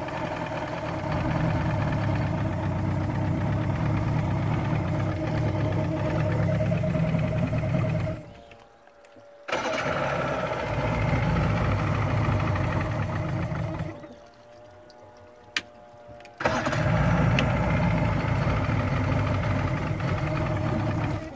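Johnson V4 two-stroke outboard motor running steadily. Its sound drops away sharply twice, for about a second and about two and a half seconds, and comes straight back each time.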